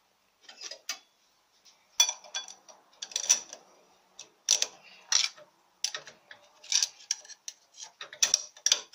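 Steel and friction clutch plates in an automatic transmission clutch drum clinking and clicking as they are handled and seated. The metal-on-metal clicks come in irregular short clusters, loudest about two and three seconds in.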